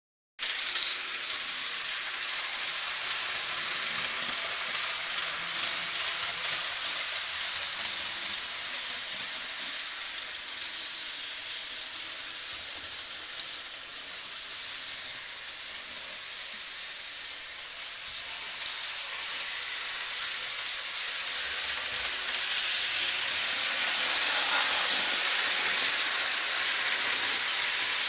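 Model trains running on the layout's track: a steady rolling hiss and whir, growing louder for the last several seconds.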